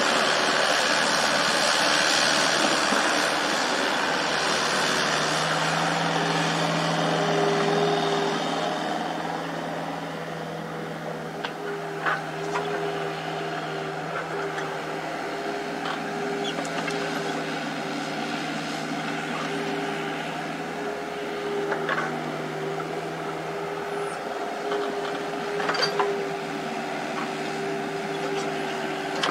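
Komatsu mini excavator's diesel engine running steadily as it digs. It is louder, with more hiss, for the first eight seconds or so, then settles to an even hum. A few short sharp knocks come later.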